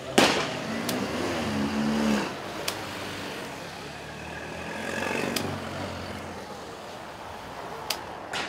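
Small old cars driving past one after another, engines running. One engine note rises about a second in, then the passing traffic settles to a quieter steady run. A sharp knock comes right at the start.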